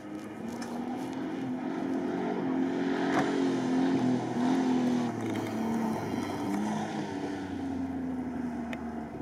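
Engine of a light, short-wheelbase off-road car, its revs rising and falling several times as it is driven through a twisty drift section. It grows louder over the first few seconds.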